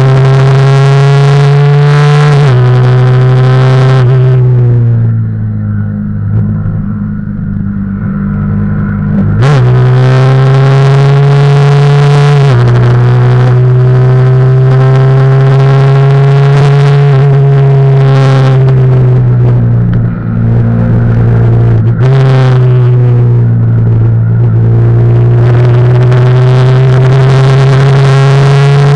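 Yamaha YZF-R15's 150 cc single-cylinder engine running hard at high revs, heard close up from the bike itself, with small steps in pitch at gear changes. About five seconds in the throttle closes and the engine drops to lower, quieter running for about four seconds, then it pulls hard again.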